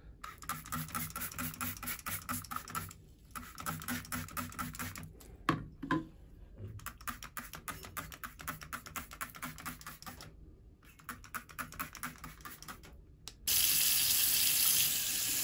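Rapid, rhythmic scrubbing strokes with a sponge on a chrome shower head and mixer tap, in runs broken by short pauses. About thirteen seconds in, the tap is turned on and water runs steadily into the sink.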